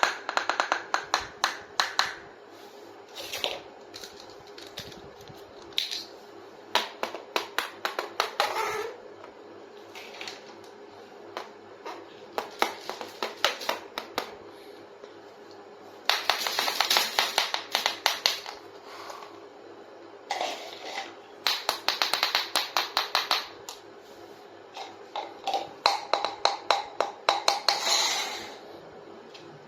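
Small plastic toy kitchen pieces being handled and tapped, in runs of rapid sharp clicks and taps lasting a second or two, with short pauses between them.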